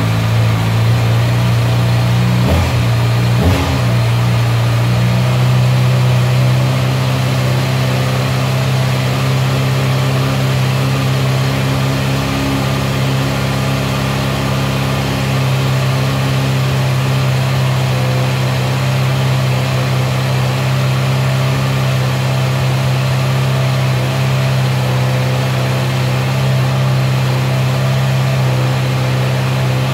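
Kawasaki ZX-6R inline-four sport-bike engine idling steadily through its exhaust, with two short throttle blips about two to four seconds in.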